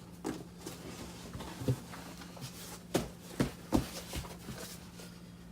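Handling noise from a fabric storage bin with a stiff plastic insert: soft rustling and a few light knocks, the loudest three close together about three to four seconds in, over a faint steady hum.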